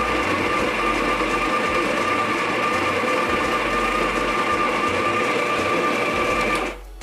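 Electric burr coffee grinder running steadily, grinding fresh espresso beans into a portafilter, with a constant motor whine; it cuts off suddenly near the end.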